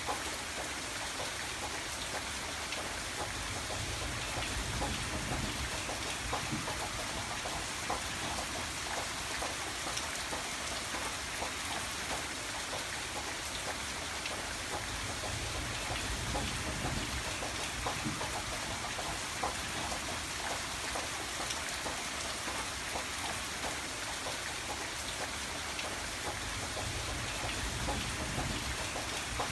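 Steady rain falling, with many individual drops tapping on a surface and a low rumble that swells up now and then.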